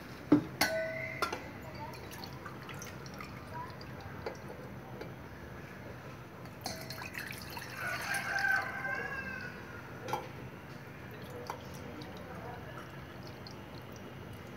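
Water poured from a steel tumbler into an empty stainless steel pot, splashing and ringing in the metal, loudest about eight seconds in. Steel vessels clink and ring a few times near the start.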